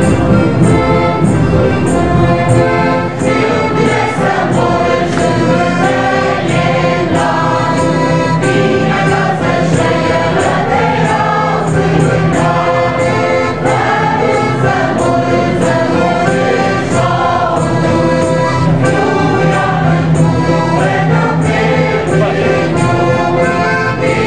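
Mixed choir of older men and women singing a song in several parts, with instrumental accompaniment keeping a steady beat of about two a second.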